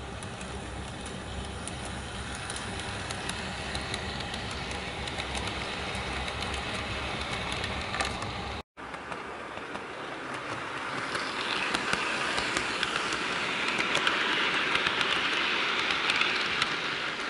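HO scale Santa Fe diesel model train running on its track: the locomotive's small electric motor whirring and the freight cars' wheels rolling and clicking over the rail joints. There is a brief break about halfway through, after which the running noise grows louder, then eases slightly near the end.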